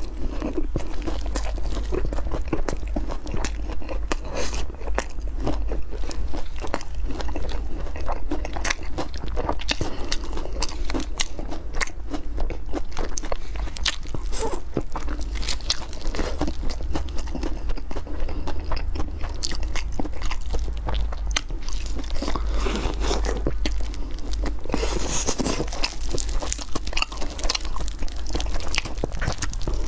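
Crisp crunching and chewing of battered fried food in sauce, with many irregular crunches as bites are taken and chewed.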